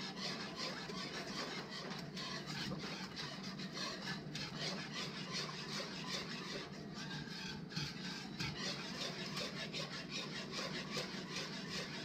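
Wire whisk stirring thickening milk gravy in a saucepan: steady scraping and swishing of the whisk against the bottom of the pan.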